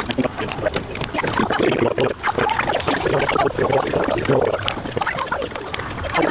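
Sweet potato slices sizzling and crackling on a hot Blackstone flat-top griddle in a little water and steam, with scrapes and clicks of metal spatulas on the steel cooktop as the slices are turned.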